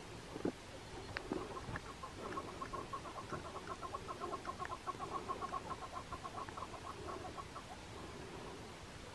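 A partridge calling: a long, fast run of clucking notes, several a second, starting about two seconds in and lasting some six seconds. A few sharp ticks come before it.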